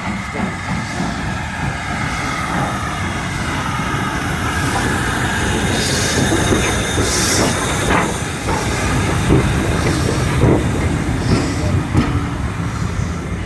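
Railway coaches rolling along the track at low speed, with the wheels squealing on the rails and scattered clicks over the rail joints. The rumble slowly grows louder.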